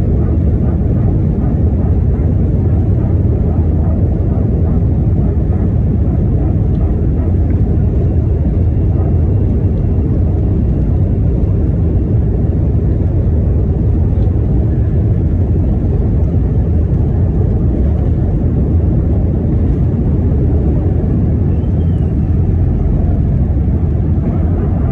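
Airbus A321 jet engines at takeoff thrust, with runway rumble, heard inside the passenger cabin: a loud, steady, deep noise during the takeoff run and climb-out.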